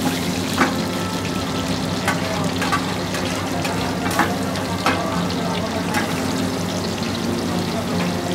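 Batter-coated prawns deep-frying in hot oil in an iron kadai: a steady sizzle with sharp crackles about once a second, over a steady low hum.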